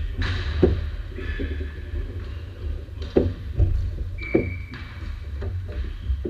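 Ball hockey play in a gymnasium: scattered sharp clacks of sticks and ball on the hardwood floor, echoing in the hall, over a steady low rumble, with a brief high shoe squeak about four seconds in.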